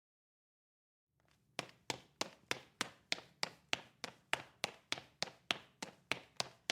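Running footsteps on a brick floor: shoes striking hard and evenly, about three steps a second, starting about a second in after silence.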